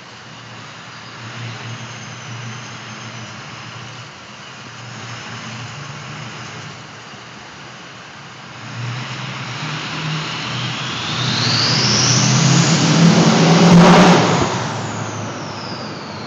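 Ford 6.0 Powerstroke V8 turbodiesel idling, then revved: a turbo whistle rises steadily in pitch as the engine climbs, peaks about fourteen seconds in, then falls away as the revs drop.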